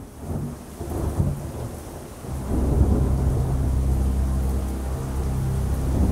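Rain and rolling thunder sound effect fading in at the start of a song. The rumble swells louder about two seconds in, with a deep steady tone beneath it.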